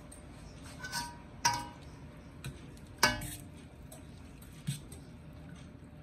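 Stainless steel pasta spoon clinking against a stainless steel cooking pot while stirring spaghetti in the water. There are five sharp, ringing metal clinks, the loudest about a second and a half and three seconds in.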